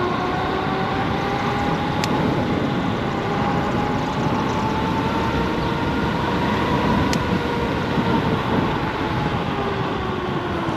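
Solar FF Lite electric scooter underway: steady rush of wind and road noise, with the motors' whine rising in pitch for about seven seconds as it speeds up, then falling near the end.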